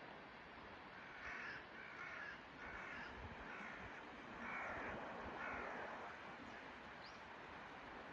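A crow cawing about six times in a row, harsh calls with the loudest near the middle, over a steady background hiss.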